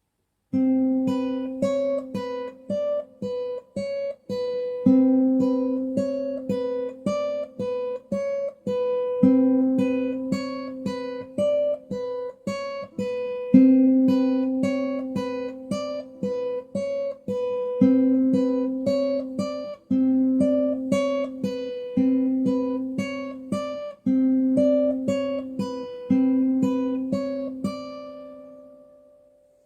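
Acoustic guitar playing a plucked melody over a recurring low held note, the last note ringing out and fading away near the end.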